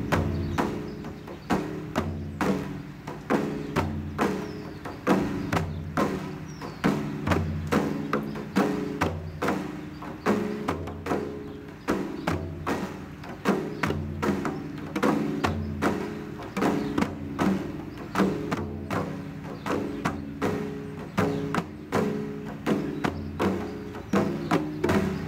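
Several hand-played frame drums in a steady group rhythm: deep bass strokes about once a second under quicker, sharper higher strokes several times a second.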